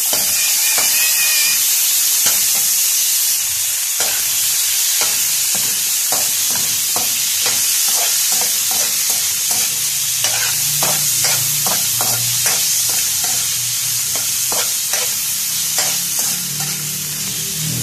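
Diced pork frying with sautéed garlic in a hot wok, a loud steady sizzle, while a ladle stirs and scrapes it, clinking against the pan again and again from about five seconds in.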